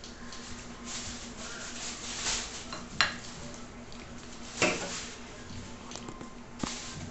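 Fork and ceramic bowl clinking, with a few sharp knocks as tableware and a drink can are handled on a stone countertop; the two loudest come about three seconds in and just past halfway.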